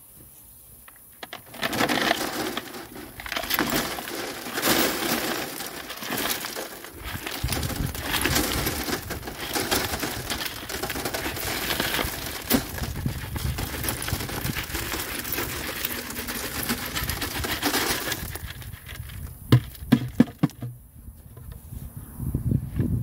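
Chunks of rough fire opal in rock matrix poured from a bucket onto a wooden-framed wire-mesh screen, clattering and rattling continuously for about sixteen seconds. A few separate sharp clicks follow near the end.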